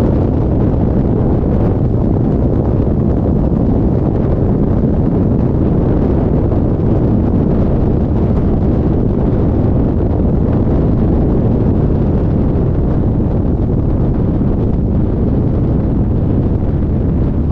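Wind buffeting a camera's microphone mounted on the outside of a Cessna 177RG Cardinal's fuselage: a loud, steady, low rush of airflow as the plane lands and rolls out.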